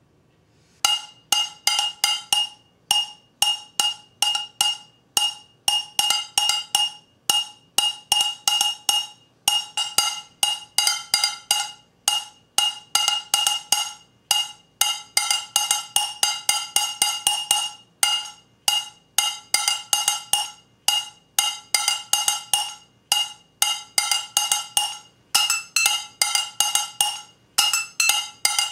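A metal pan struck over and over in a fast, looped rhythm, each hit a short, bright ring at the same pitch. The hits start about a second in and come in quick clusters.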